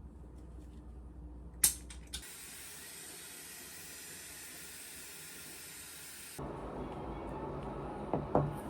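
A sharp click, then a steady hiss lasting about four seconds that starts and stops abruptly, followed by a duller rushing noise with a few light knocks near the end.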